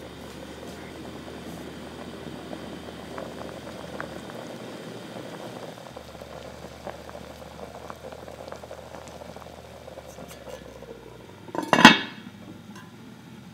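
Thick butternut squash soup boiling in an enamelled Dutch oven, a steady bubbling with small pops. Near the end the lid is set on the pot with one loud clank.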